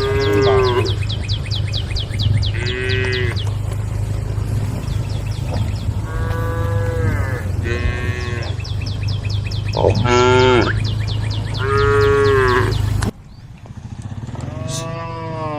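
Cows mooing, about six loud drawn-out calls one after another, over a steady low hum and a fast high-pitched pulsing in the background. About 13 s in the background drops away abruptly, and one more moo follows.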